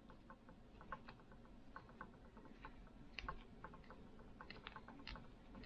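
Faint, rapid, irregular small clicks, several a second, as the mixture needle adjusting screw of a Tillotson HR76A carburetor is turned out by hand.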